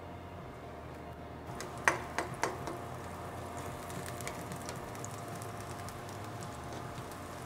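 Oil sizzling quietly in a wok as sliced garlic, ginger and green-onion whites fry to flavour the oil, with a few sharp knocks of a spatula against the pan about two seconds in. The fine crackling sizzle sets in about a second and a half in and keeps on while the aromatics are stirred.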